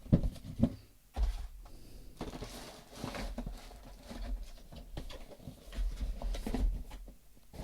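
Items and packaging being handled and moved about on a table: scattered clicks and knocks, soft rustling and a few dull thuds.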